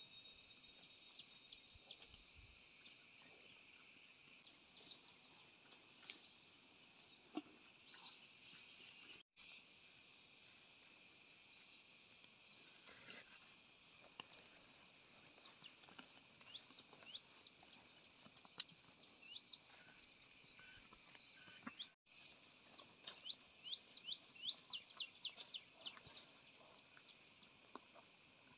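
Faint, steady high-pitched insect chorus, with scattered short bird chirps and a quick run of chirps near the end. The sound drops out briefly twice.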